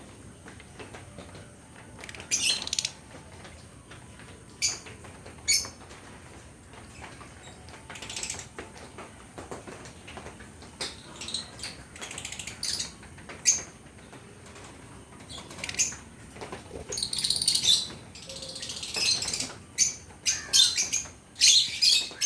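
Fischer's lovebirds chirping in short, shrill bursts on and off, coming thicker and louder in the last few seconds.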